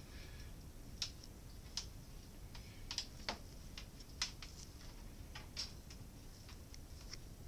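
Faint, irregular light clicks and taps, about a dozen, like small objects being handled.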